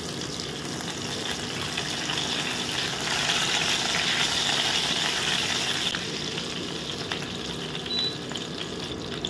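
Curry leaves, mustard seeds, cumin and nigella seeds sizzling in hot mustard oil as a tadka, stirred with a spatula. The sizzle swells for a few seconds in the middle, then eases.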